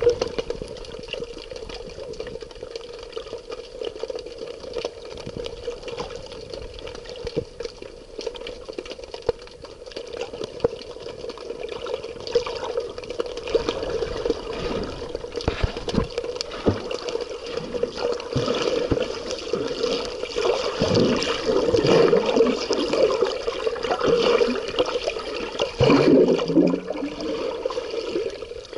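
Water running and splashing, a continuous irregular rush that grows busier and louder about halfway through.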